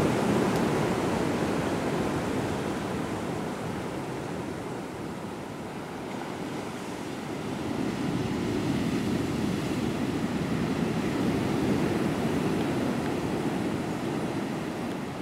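Ocean surf breaking on a rocky shore: a continuous rush that swells and eases, dipping in the middle, building again, then fading near the end.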